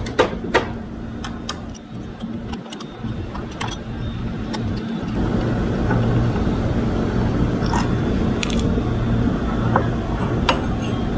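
Irregular metallic clicks and clinks of a wrench working the two 12 mm front brake caliper bolts. Under them runs a steady low engine hum that grows louder about five seconds in.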